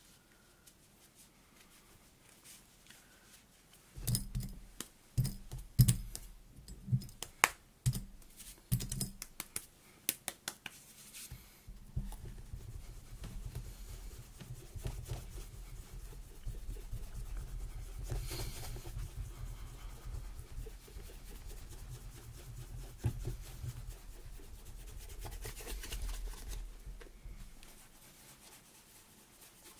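After a few quiet seconds, a run of sharp knocks and clicks from handling, then steady rubbing on a leather Thursday Boots President boot that fades away near the end.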